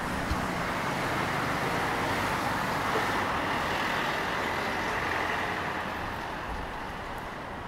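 Road traffic on a city street: a steady rush of passing cars and other vehicles that swells in the first few seconds and eases off near the end.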